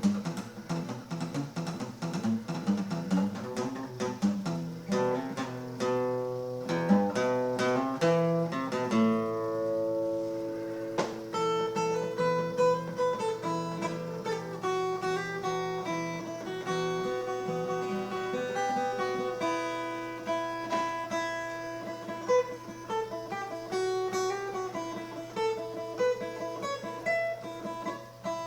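Guitar playing: quick strummed chords for the first several seconds, then a slower line of single picked notes.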